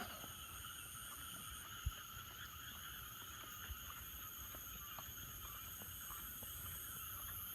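Night chorus of insects and frogs calling together, a steady high-pitched trilling in several layers. Low rumble runs underneath, with a single soft low thump about two seconds in.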